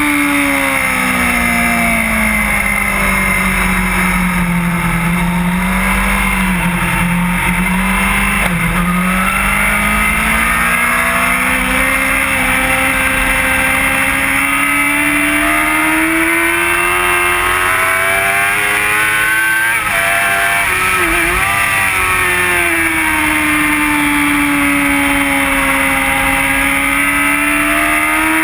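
Suzuki GSX-R750 inline-four engine running hard at track speed, its note sinking over the first several seconds and then climbing again, with a short wobble about two-thirds of the way through before it steadies. Constant wind rush lies underneath.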